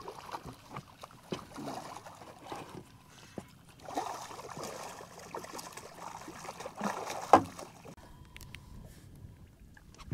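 Water splashing and lapping around a small flats boat as a hooked redfish is played close by, with scattered small knocks and one sharp, loud knock about seven seconds in.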